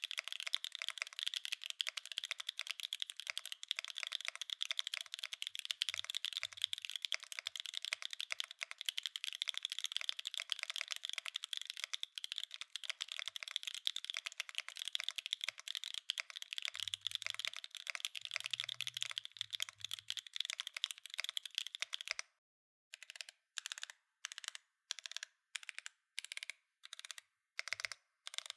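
Mode Encore mechanical keyboard with Obscura linear switches on a carbon fiber plate, wave-spring mounted with no foam, being typed on fast in a dense run of keystrokes. Near the end the typing gives way to single, evenly spaced key presses about two a second.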